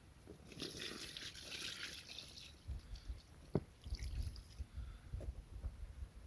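Water splashing and trickling at the lake edge for about two seconds, as around a carp being returned. It is followed by low knocks and handling bumps, with one sharp click midway.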